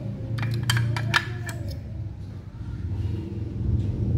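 Sharp clicks and knocks of hard plastic as two white plastic electrical outlet back boxes are handled and clatter against each other. They come as a quick cluster in the first second and a half, over a low steady hum.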